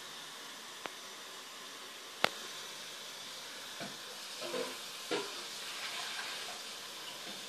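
Newborn baby hiccuping: a sharp, abrupt hic a couple of seconds in, after a fainter one, then a few brief small voiced squeaks and snuffles near the middle, over a steady background hiss.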